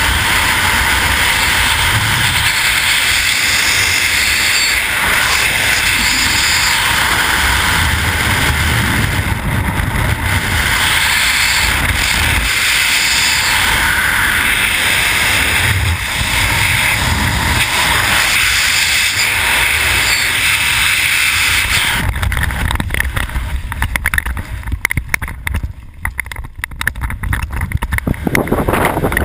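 Loud, steady wind rushing over a helmet-mounted camera's microphone in wingsuit freefall. About three quarters of the way through it turns choppy and gusty with brief dips as the parachute opens and the fall slows.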